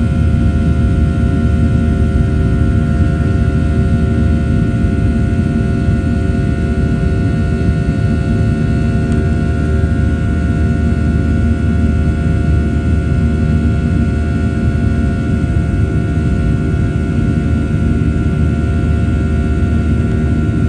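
Boeing 737-800's CFM56-7B turbofan engines heard from inside the cabin during the climb after takeoff: a steady loud rumble with several steady whining tones over it.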